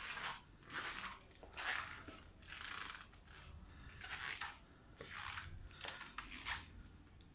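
Footsteps of someone walking at an even pace, each step a short scuffing hiss, a little faster than one a second.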